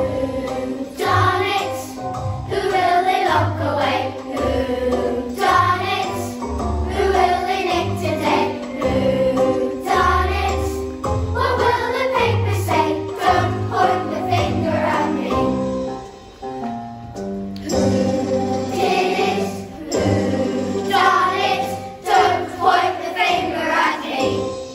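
A group of children singing a song together with instrumental accompaniment and a pulsing bass line.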